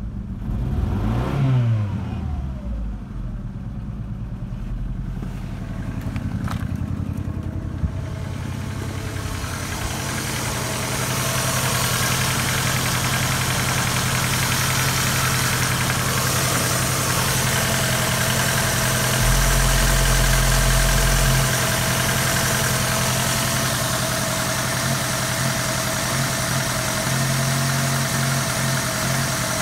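Ford Focus 1.6 Zetec-SE four-cylinder petrol engine running at idle, with a brief rev up and back down near the start. It is heard first from inside the cabin, then fuller and brighter with the bonnet open over the engine bay.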